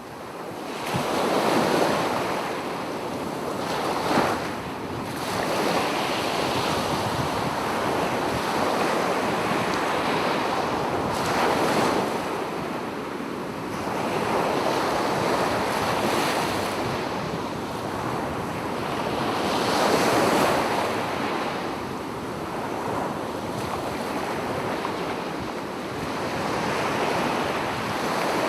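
Sea surf washing onto the shore: a continuous hiss of breaking waves that swells and eases every few seconds as each wave comes in.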